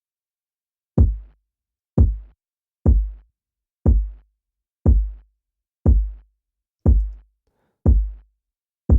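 Electronic kick drum sample repeating about once a second, nine hits. Each is a sharp click that drops into a short low thump. The kick has been degraded with sampler-style bit reduction, overdrive and EQ to sound dusty.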